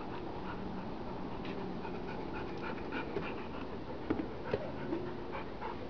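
Dog panting, tired after running.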